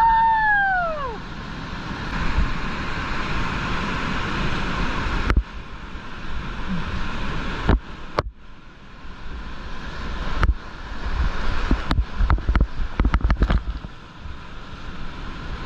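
Loud rushing whitewater heard through a helmet camera's microphone, with water and wind buffeting it, as a kayak runs a steep rapid and waterfall. The roar drops out and turns muffled a few times. A quick run of sharp slaps and knocks comes near the end as the boat goes over the drop. A brief falling whoop-like call sounds right at the start.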